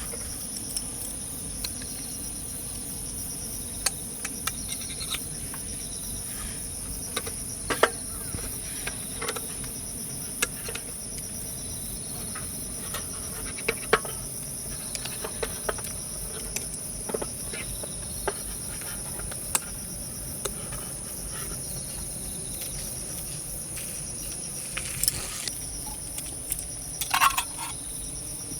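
Insects chirping in a steady high-pitched drone, with scattered light clicks and knocks, the loudest around eight seconds in and near the end.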